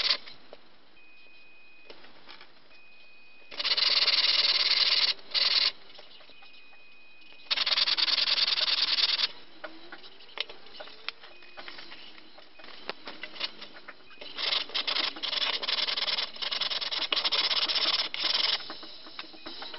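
Build plate of an Anycubic Photon resin printer scrubbed back and forth on sandpaper, sped up. It comes in harsh rasping bursts of one to two seconds with short pauses, and turns into quick choppy strokes in the second half.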